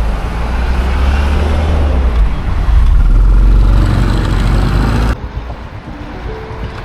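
Yamaha LC135 motorcycle on the road, its engine and the wind rumbling on the microphone, growing louder about three seconds in. About five seconds in the sound drops abruptly to a much quieter road noise.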